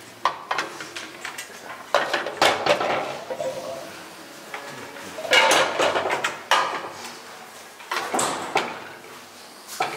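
Metal clattering and knocking from an old pan balance scale as weights and loaves are set on its metal pans, in short bursts a few seconds apart.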